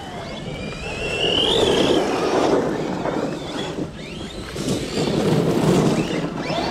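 1/8-scale brushless RC monster truck driving hard over dirt, its electric motor whining up in pitch as it accelerates, about a second in and again near the end, over rough tyre-and-dirt noise and wind on the microphone.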